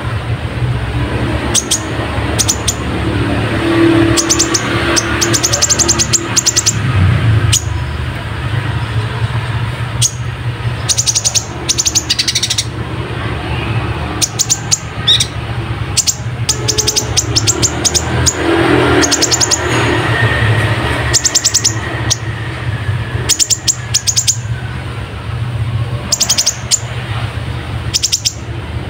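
Sunbird of the kind kept as 'kolibri ninja' singing in repeated bursts of fast, high clicking trills, its song filled with house-sparrow-style chirps. A steady low hum runs underneath.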